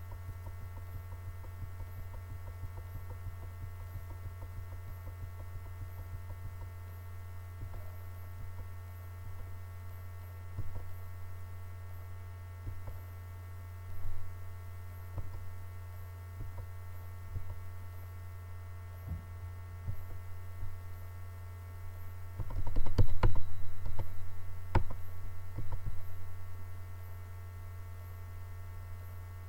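Steady low electrical hum, with scattered faint clicks and a louder cluster of knocks and clicks about twenty-three seconds in.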